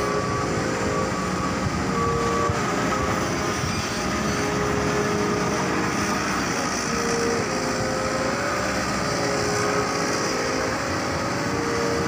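Heavy machinery running steadily: a continuous even machine noise, with faint short tones coming and going over it.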